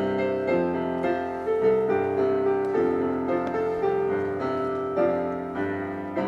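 Casio digital piano playing a hymn introduction in slow, sustained chords, leading the congregation in before the singing starts.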